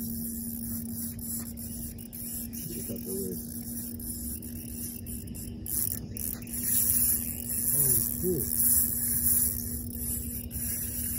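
Spinning fishing reel being cranked to bring in a hooked fish, a rough rasping whir that grows louder in the second half, over a steady low hum. Faint voices in the background.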